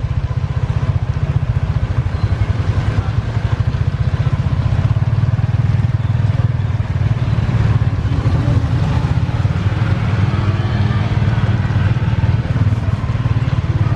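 Small motorcycle-type engine running steadily with a fast, even pulse, under a constant hiss.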